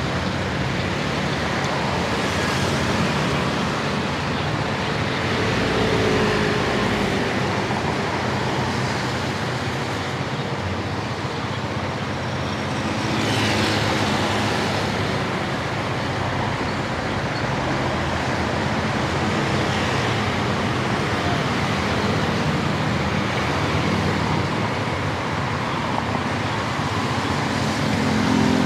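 City street traffic heard while riding a scooter through it: a steady mix of road noise and car and scooter engines, with a brief louder swell about halfway through.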